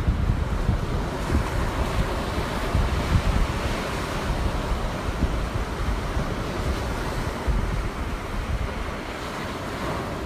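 Small Gulf of Mexico waves breaking and washing up a sand beach in a steady wash of surf, with wind buffeting the microphone.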